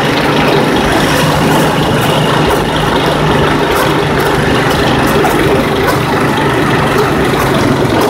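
Steady drone of a vehicle's engine with road noise, heard from on board while driving along a street.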